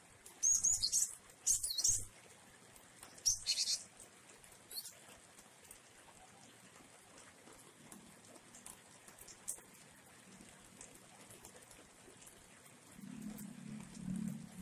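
Caged gelatik wingko giving a few short, sharp, high calls in the first few seconds, then falling silent. Under it runs a faint steady hiss of rain, and a low hum rises near the end.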